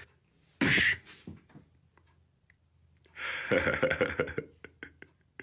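A short hissing "psh" about half a second in. From about three seconds in, a small dog growls in rough, pulsing bursts during play, followed by a few light clicks.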